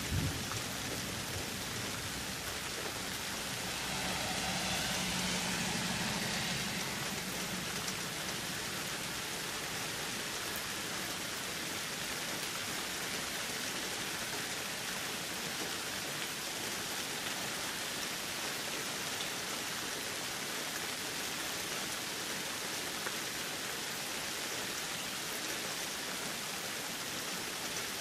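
Steady rain falling, an even hiss, with a brief low rumble at the very start and a slight swell a few seconds in.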